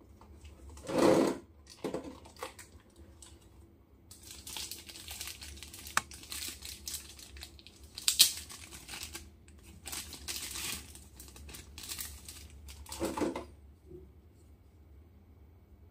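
Thin plastic bag crinkling and rustling as it is unwrapped from a small PVC figure base, with louder bumps of plastic packaging being handled about a second in and again near the end.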